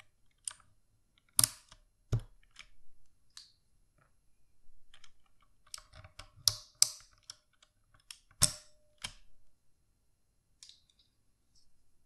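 Plastic keycaps being pried off a Redragon Kumara K552 mechanical keyboard with a keycap puller: a string of irregular sharp clicks and clacks against the plate and switches, with a few louder snaps as caps come free.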